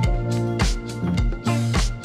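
Background music with a steady drum beat under sustained instrument tones.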